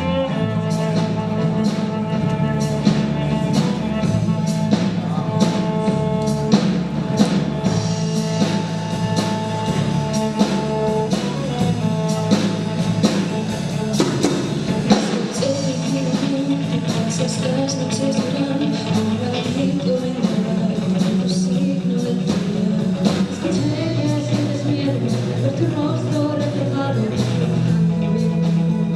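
Rock band playing live, with drums, guitar and bass and a voice singing over them.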